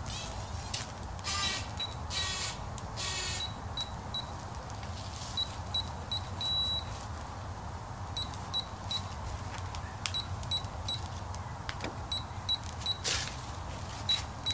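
Wood fire in a fire pit crackling, with sharp pops and short hissing bursts over a steady low rumble. Short, high, same-pitched beeps repeat in small groups throughout.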